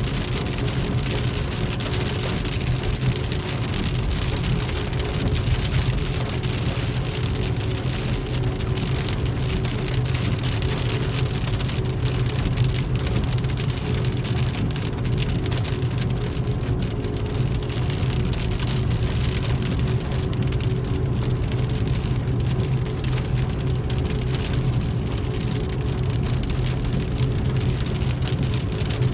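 Rain pattering on a car's roof and windshield, heard from inside the moving car's cabin, over a steady low drone of engine and tyres on the wet road.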